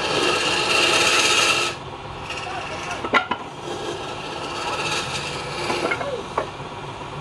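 A hand-held cloth pad pressed against a wooden spindle spinning on a lathe, giving a loud rasping hiss for the first second and a half, then quieter rubbing with a few sharp clicks, over the lathe's steady running hum.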